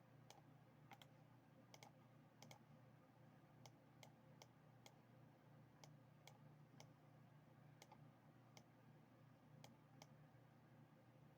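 Faint computer mouse clicks, irregular, one or two a second and sometimes in quick pairs, over a low steady hum.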